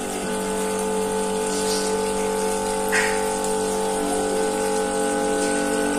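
Small electric water pump running with a steady hum of several held tones, over flowing water.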